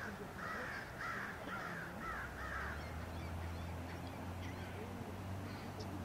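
A crow cawing in a quick series of about six calls, roughly two a second, stopping a little under three seconds in. A steady low hum comes up about two seconds in and runs on beneath it.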